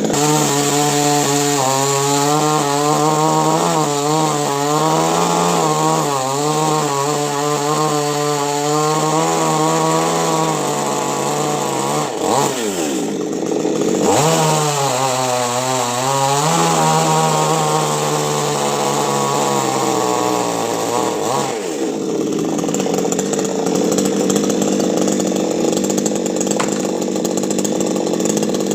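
Chainsaw running, its engine note wavering up and down for the first ten seconds, then dropping and climbing again about twelve seconds in. Its pitch settles lower in the second half and turns noisier and less distinct near the end.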